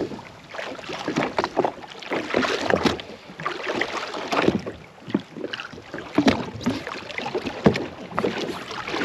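Water lapping and slapping irregularly against the hull of a drifting jet ski.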